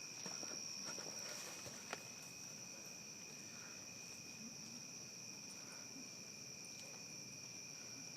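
Crickets chirring steadily in a continuous high-pitched trill, with faint scuffing in the first two seconds and a single sharp click about two seconds in.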